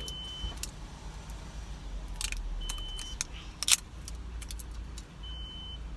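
Plastic wrapping on an LOL Pets toy piece being peeled and picked at by fingers: scattered crinkles and small clicks, with one sharp snap about three and a half seconds in. A steady low rumble runs underneath.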